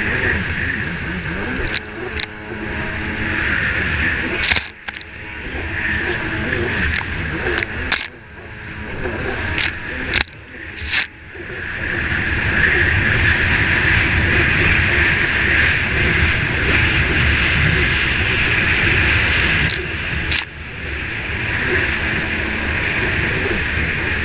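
Racing jet ski's engine running hard at high revs, with water spray rushing past and sharp knocks of the hull hitting chop. The engine note dips briefly several times in the first half, then holds steady and loud from about halfway.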